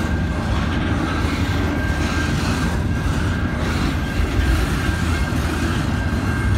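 Double-stack container freight train rolling past at close range: a steady loud rumble of steel wheels on the rails, with a faint steady high squeal running underneath.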